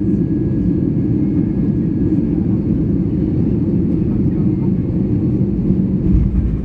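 Steady rumble in the cabin of an Airbus A320 on its landing roll: the jet engines and the wheels rolling fast on the runway. The deepest part of the rumble swells about six seconds in.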